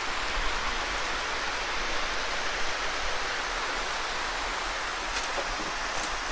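Steady rushing of a mountain stream, with a few faint clicks near the end.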